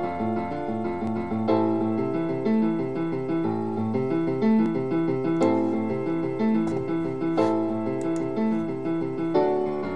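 Background music: a steady pattern of repeated notes over held chords that change every couple of seconds.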